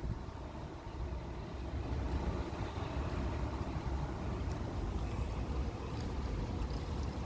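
Strong gusty wind buffeting the microphone: an uneven low rumble.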